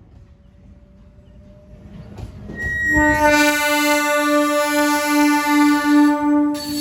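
Train drawing closer with a rumble that grows louder, then its horn sounds one long, loud blast of about four seconds, starting about three seconds in and cutting off just before the end.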